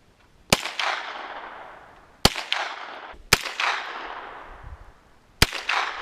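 Four shots from a 9mm JR Carbine, fired at irregular intervals of one to two seconds, each report followed by a long fading echo.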